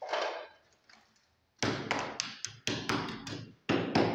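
A hammer striking at a masonry wall in quick repeated blows, about three or four a second, starting a second and a half in, with room echo. A short scraping rush comes just before.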